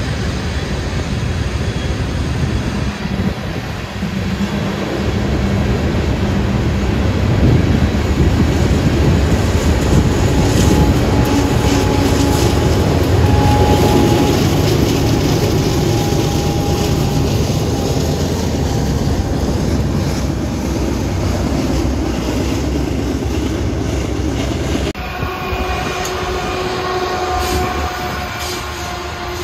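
Freight train of coal hopper cars rolling past with wheels clicking over rail joints and a faint squeal, and a Union Pacific diesel locomotive passing partway through. About 25 seconds in, the sound cuts to a BNSF ES44C4 diesel locomotive rolling by, with several steady tones over the rumble.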